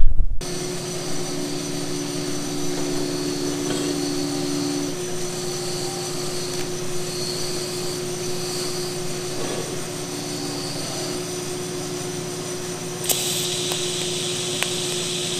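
A steady droning hum with a few held tones. Near the end a TIG welding arc strikes on the steel box tube and hisses steadily.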